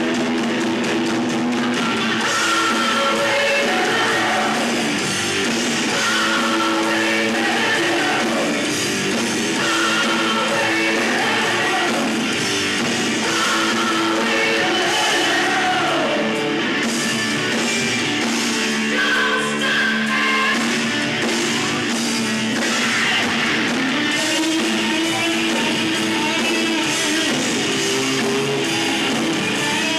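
A rock band playing live, with electric guitar and a singing voice over the band.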